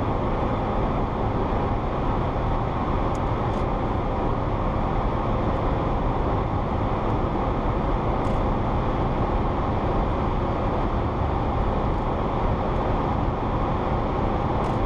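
Steady road and engine noise inside a moving Geely car's cabin, with a few faint, sharp clicks.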